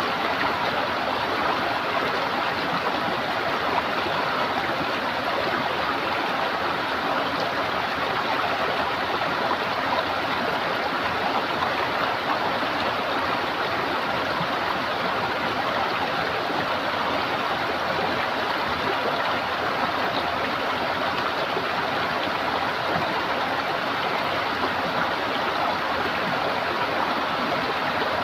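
Running water gurgling in a stream, a steady rush with no change.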